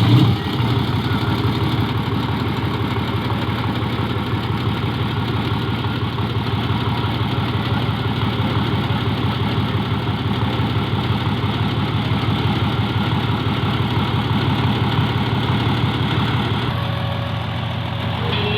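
Bulldozer's diesel engine settling into a steady idle right after starting, with a rapid even chug of firing strokes; the note drops slightly near the end.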